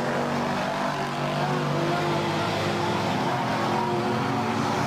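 Racing pickup trucks' engines running at speed around a short oval, several engines overlapping in a steady mix of engine notes.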